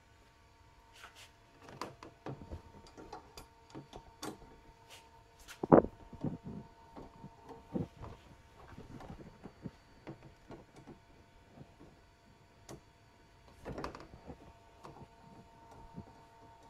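Bolt being turned in with a long socket wrench and extension on a scooter's body panel: scattered metal clicks and knocks, the sharpest about six seconds in and a cluster of rattling knocks near the end.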